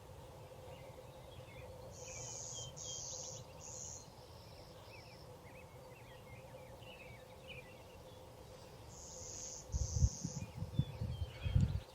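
Outdoor ambience of small birds chirping, with high buzzy calls in short runs of two or three. Low thumps near the end.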